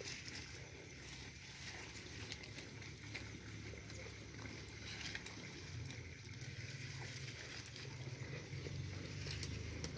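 Dry sticks and twigs giving scattered sharp clicks and light rustling as firewood is handled and lit in a three-stone hearth, over a steady low rumble.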